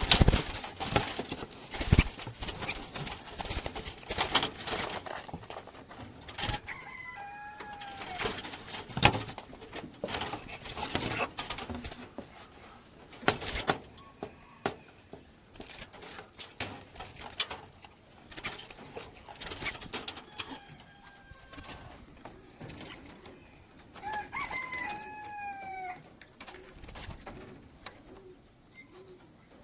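Clicks and knocks of a bird trap being handled, with a few short bird calls among them.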